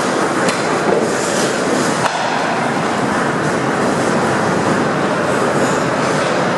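Ice hockey play heard at rink level: a steady loud rush of skates carving and scraping on the ice over the rink's ambient noise, with a few light clacks near the start and about two seconds in.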